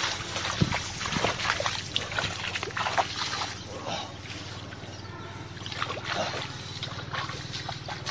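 Shallow muddy water splashing and trickling as hands grope through it, busiest in the first four seconds or so and sparser after, over a low steady hum.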